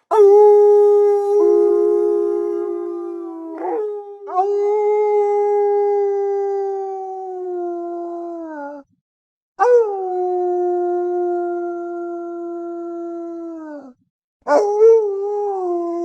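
A wolf howling: four long howls, each held at a steady pitch and then falling away at the end, with short breaks between them.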